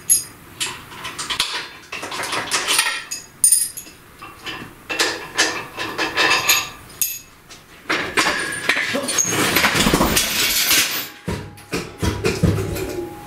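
Metal clanks and clinks of hand tools and steel engine-stand and hoist parts being handled. About eight seconds in there are a few seconds of continuous rattling and scraping.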